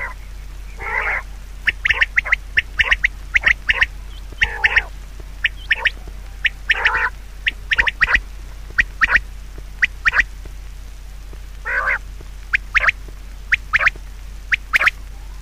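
Birds calling repeatedly: many short, sharp calls at an irregular pace, with a few longer calls among them.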